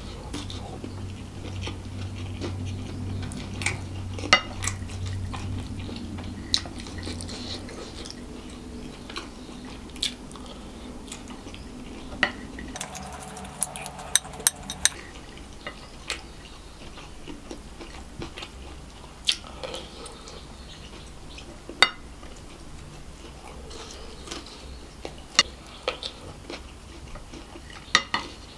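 Wooden spoon clicking and scraping against a plate of fried rice every few seconds, with close-miked chewing in between.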